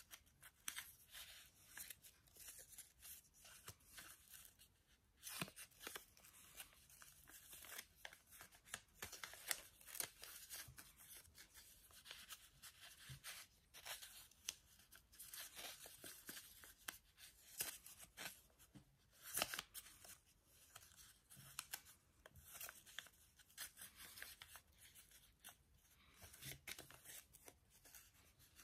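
Faint, irregular rustling and crackling of a sheet of origami paper being folded and creased by hand, with many small crinkles and taps.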